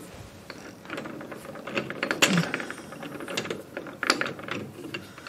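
Metal clicks and rattles as an ER40 collet block is seated in a three-jaw lathe chuck and the chuck jaws are closed onto it. The clicks come in a quick cluster about two seconds in, with a few single louder clicks later.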